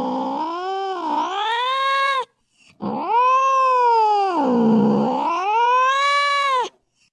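Domestic cat yowling (caterwauling): two long drawn-out calls, each sagging in pitch and then rising again, the first ending about two seconds in and the second starting a moment later and stopping near the end.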